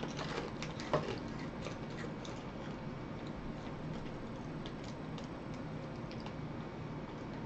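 Faint crunching of crispy prawn crackers being chewed, with light crinkles from the open snack bag: small clicks come thickly in the first couple of seconds and only now and then after, over a low steady room hum.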